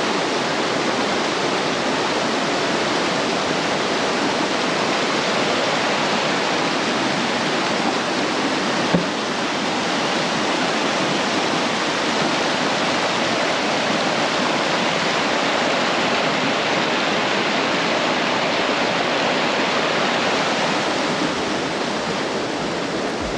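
Fast-flowing creek rushing over a small concrete spillway: a loud, steady roar of falling, churning water.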